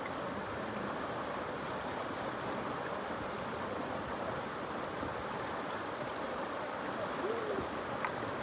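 River water rushing steadily over rocks and through a small rapid.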